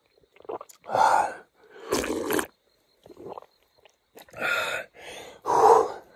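A man slurping water straight from a creek with his mouth, in a series of loud short sucks about a second apart, mixed with gasping breaths.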